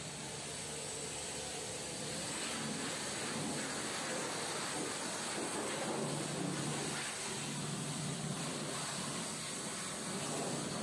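Long-handled wash brush scrubbing back and forth over a foam-covered truck body panel, soft repeated wet swishes over a steady hiss.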